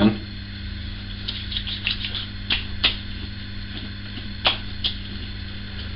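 Hands patting witch hazel onto a freshly shaved face: scattered light taps, with a few sharper slaps in pairs about two and four and a half seconds in, over a steady low electrical hum.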